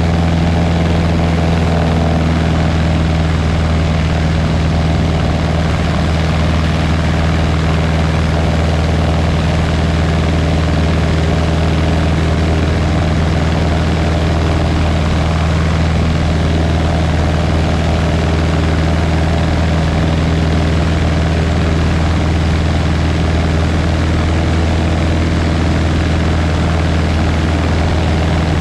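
Light propeller airplane's piston engine droning steadily in cruise, a deep even hum with no change in pitch.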